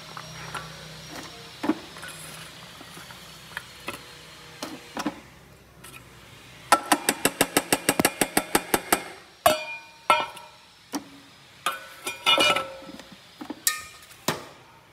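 A quick, even run of about a dozen sharp knocks, roughly five a second for about two seconds in the middle, followed by scattered single knocks and clatter.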